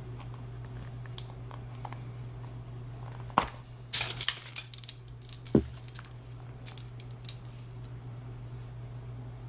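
A sharp knock, then a short clatter of small clicks and rattles and a second knock, as objects are handled and set down, over a steady low hum.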